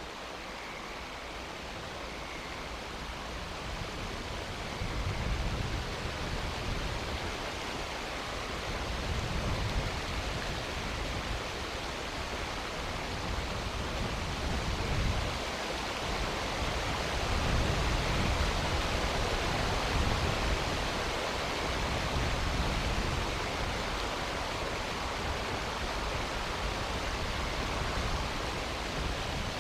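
Steady hiss of a storm on an outdoor microphone, swelling several times with low rumbles.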